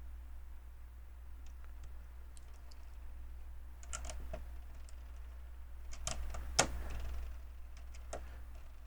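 Plastic LEGO pieces clicking and tapping as they are handled and pressed together, with a cluster of clicks about four seconds in and a louder run of clicks around six to seven seconds, over a faint steady low hum.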